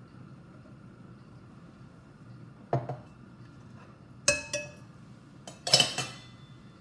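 A metal spoon knocking and clinking against a metal saucepan as a tablespoon of cooking oil goes into the pot: a dull knock about three seconds in, two ringing clinks about a second later, and a louder clatter near the end.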